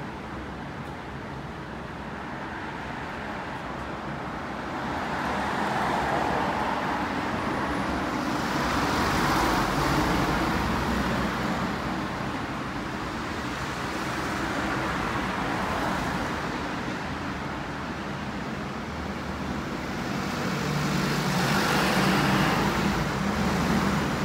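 Road traffic: a steady hum of passing cars, swelling as vehicles go by, first for several seconds starting about five seconds in and again near the end.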